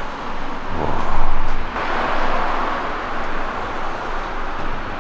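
Road traffic noise, with a vehicle going past that is loudest about a second in, over a steady hiss.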